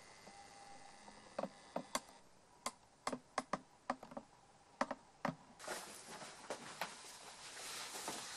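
A run of about a dozen sharp, irregular clicks and taps, followed near the end by a rustling as a person sits down onto a fabric-covered sofa.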